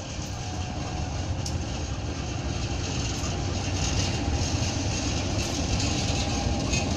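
Diesel-electric locomotive hauling a coach at low speed, its engine rumble growing steadily louder as it approaches.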